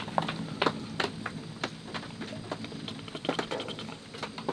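Raindrops dripping and pattering irregularly, a few sharp ticks a second over a steady background hiss.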